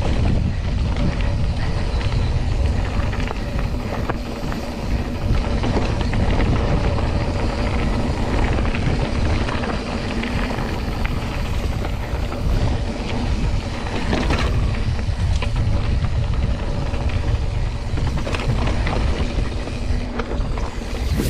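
Mountain bike riding hard over a dirt trail: a steady heavy low rumble from wind and ground vibration, with scattered rattles and clicks from the bike over bumps.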